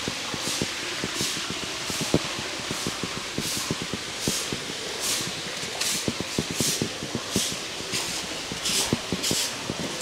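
Long grass broom sweeping stone steps: soft hissing swishes about once a second. Footsteps knock on stone underneath.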